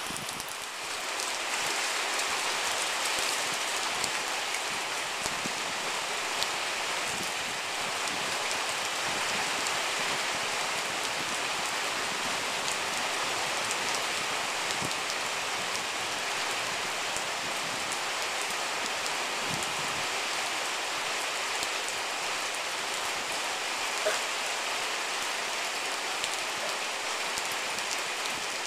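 Steady rain falling, an even hiss with the odd nearer drop ticking.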